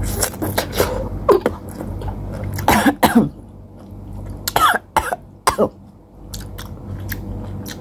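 A woman coughing repeatedly, in short sharp bursts with pauses between, as she chokes on her first mouthful of food while chewing.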